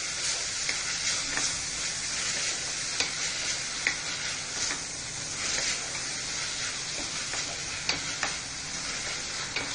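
Onion, ginger-garlic and red chilli masala frying in oil in a pressure cooker: a steady sizzle, stirred with a wooden spatula that gives occasional sharp scrapes and taps against the pan. The masala is being fried until the oil separates.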